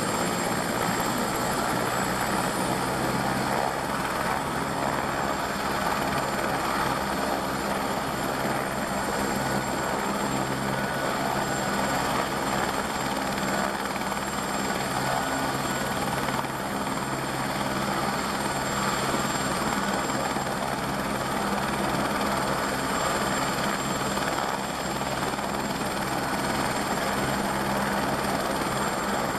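Airbus AS350 B3e (H125) helicopter running steadily, its Safran Arriel 2D turboshaft giving a steady high whine over the fast beat of the main rotor.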